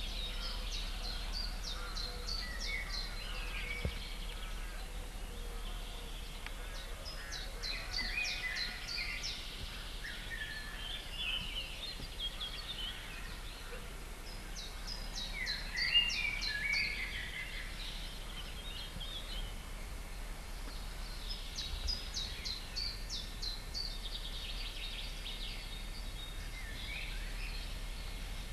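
Songbirds singing in a spring park: a song phrase of quick high notes repeats every six or seven seconds, with other birds chirping in between. A steady low hum runs underneath.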